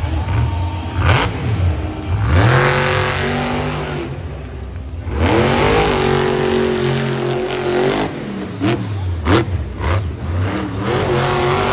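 Monster truck's supercharged V8 revving hard in bursts, its pitch climbing steeply then holding and dropping away, three times over. A few sharp cracks stand out, about a second in and about nine seconds in.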